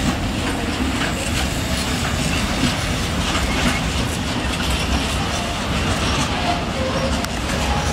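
Freight train of pocket wagons carrying curtain-sided truck trailers rolling past close by: a steady rumble of the wagons with wheels clattering over the rail joints.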